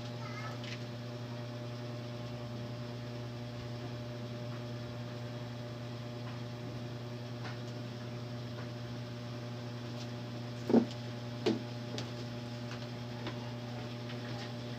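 Steady low electrical hum, with two short pitched sounds in quick succession about eleven seconds in.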